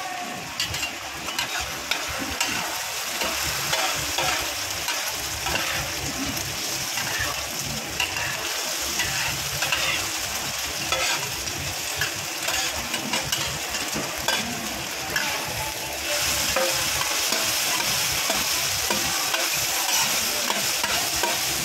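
Oysters and egg frying on a large flat pan, sizzling steadily, with metal spatulas scraping and clicking against the pan as the food is turned and chopped. About sixteen seconds in, the sizzling gets louder.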